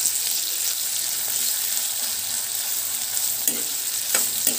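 Sliced onions sizzling steadily in hot oil in a pan as a spatula stirs them, with a few short scrapes of the spatula against the pan near the end.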